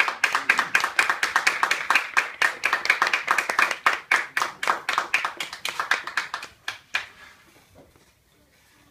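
Clapping from a small group of people right after a band piece ends, the separate claps thinning out and stopping about seven seconds in.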